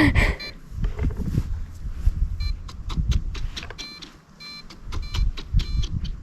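RC airplane's electric motor and propeller whining in several short bursts as the throttle is worked, over a steady low rumble of wind and handling noise.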